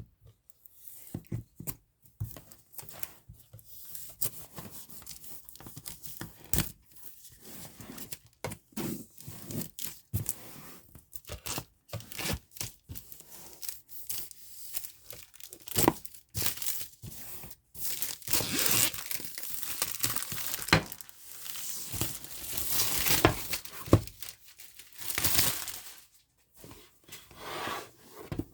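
Keyboard packaging being opened by hand: repeated tearing and crinkling of wrapping, with scattered sharp clicks and knocks, growing busier and louder in the second half.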